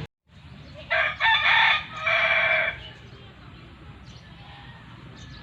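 Rooster crowing once, a loud call about two seconds long that starts about a second in, then low background noise.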